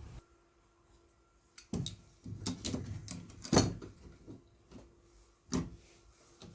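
Tools and parts being picked up and set down on a workbench: a handful of separate clunks and clatters, the loudest about three and a half seconds in.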